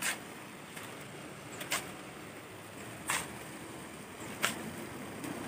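Shovels working sand into a truck bed by hand: four short, sharp scraping strokes, about one every second and a half.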